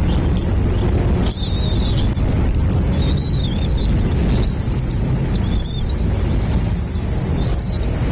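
A bird giving a series of high, thin whistled calls, several drawn out as rising glides about a second long, over a steady low rumble.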